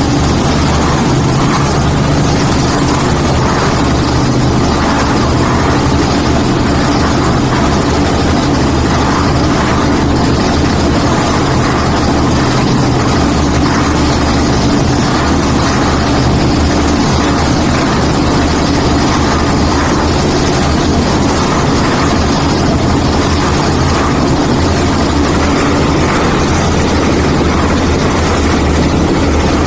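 Concrete mixer machine with hopper running: a loud, steady engine drone with a low hum that does not change.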